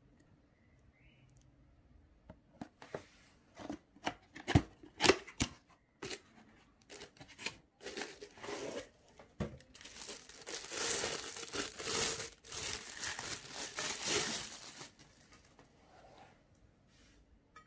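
Packaging being handled: a series of sharp knocks and taps, then several seconds of crinkling and rustling wrapping as the mug is pulled out of its box.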